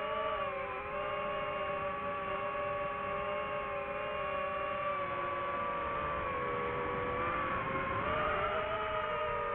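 DJI FPV quadcopter's motors and propellers whining steadily as it flies. The pitch dips briefly about seven seconds in and rises again as the throttle comes back up.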